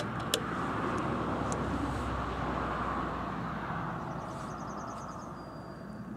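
A road vehicle passing by, its noise swelling over the first couple of seconds and fading away. A few light clicks come at the start, and there is faint rapid ticking near the end.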